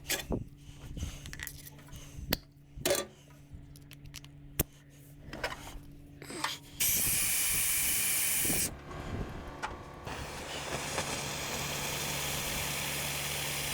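A few knocks from handling heavy metal parts, then a sudden loud rushing hiss about seven seconds in that lasts about two seconds, followed by a steadier, quieter hiss, as the heavy pressure-washer part is being cleared of the little water inside it.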